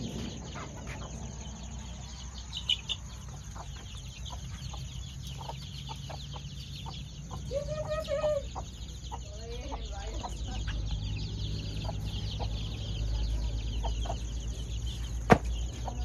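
Chickens: a hen clucking among her chicks, in short scattered calls with one longer call about halfway through. A sharp click comes near the end.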